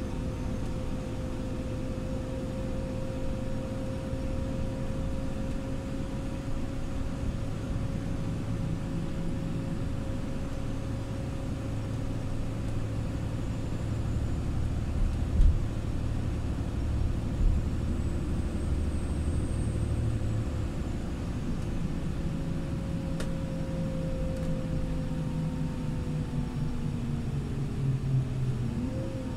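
Irisbus Crossway 12M bus driving at a steady speed: a low engine and road rumble with a steady drivetrain whine. Two short thumps come about halfway, and the whine slides in pitch near the end.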